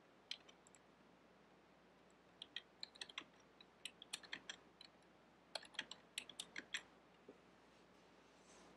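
Faint computer keyboard typing: a single key click near the start, then three quick runs of keystrokes from about two and a half seconds in to about seven seconds in.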